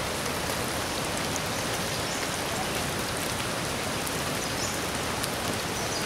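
Steady, even hiss of water: monsoon runoff running over a rocky, muddy trail.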